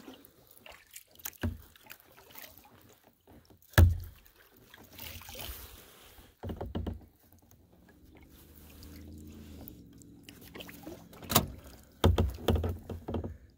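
Kayak paddling on calm water: the paddle blades dip and splash at irregular intervals. There are sharp knocks, the loudest about four seconds in and a cluster near the end.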